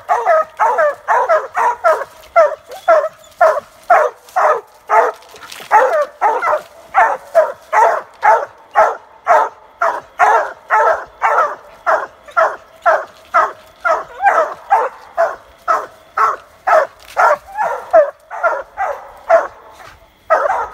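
Hounds barking treed: a steady, rapid run of loud barks, about two a second, as they bay up the trunk, the chop that signals game is up the tree.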